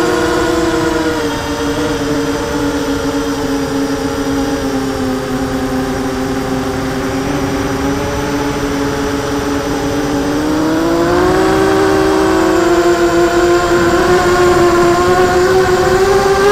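Motors and propellers of a BadBird BB4 250-size FPV racing quadcopter, heard through its onboard camera: a steady multi-tone whine that sinks a little in pitch about two seconds in, then climbs again from about eleven seconds and once more near the end as the throttle rises.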